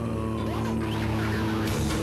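Background music with sustained tones and a few sliding pitches.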